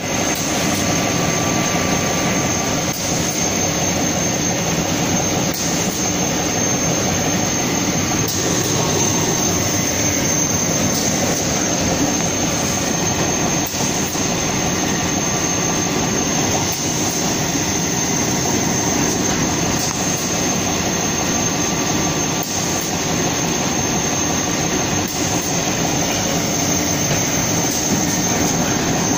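Plywood-processing roller machine running steadily as okoume plywood sheets pass through it: its electric motor and rollers make a continuous loud machine noise with a steady high-pitched whine.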